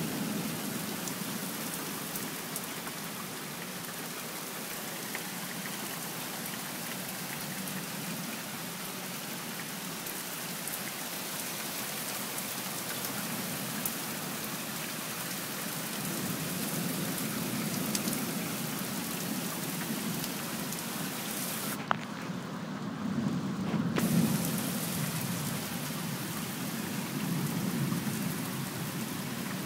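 Heavy rain pouring steadily, with low rolls of thunder swelling up several times in the second half. A single sharp click about two-thirds of the way through.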